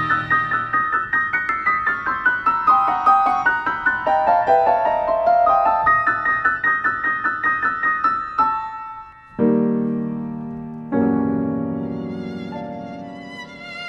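Background piano music: a run of quick notes stepping downward over the first eight seconds or so, then two struck chords, each left to ring and fade.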